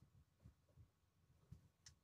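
Near silence, with a few faint soft bumps and a small click as a small bottle of glue is handled.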